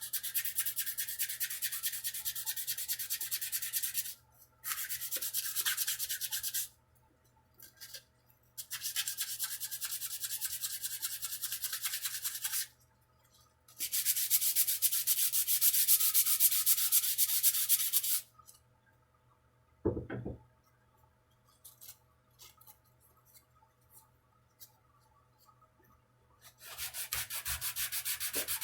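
Sandpaper sanding a wooden guitar neck in five stretches of a few seconds each, with short pauses between them. A single dull knock falls in the longest pause.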